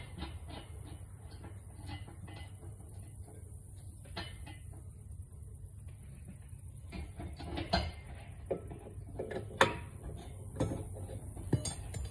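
Light metal clicks and clinks from hand work on the lug nuts of an RV wheel. It starts as a quick run of small clicks, then after a quieter stretch comes a few sharper, ringing metallic clinks in the second half.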